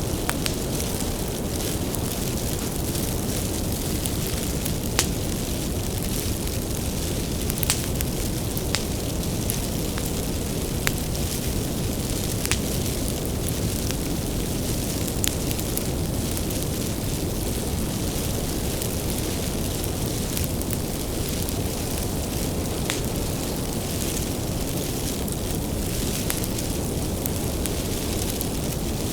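Wood bonfire burning with a steady low roar and scattered sharp crackles and pops of the firewood, one louder pop about five seconds in.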